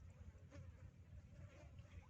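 Flies buzzing faintly, over a steady low rumble.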